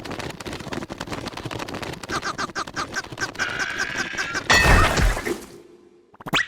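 Cartoon sound effects: a fast, dense rattling clatter, joined about two seconds in by squeaky, chattering cartoon-creature voices, then a loud crash about four and a half seconds in that dies away.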